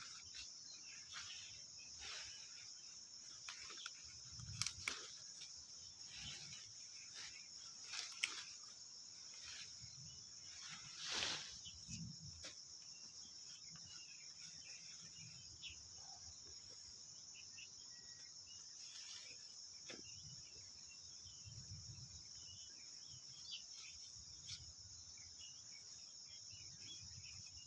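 Insects chirring in a steady high-pitched chorus, with a few scattered rustles and knocks from handling the plants, the loudest about eleven seconds in.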